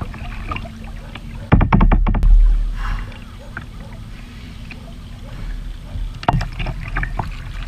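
Lake water lapping against a kayak's bow right under the camera, with a loud muffled rumble and a quick run of knocks about one and a half seconds in, and a few more knocks near the end.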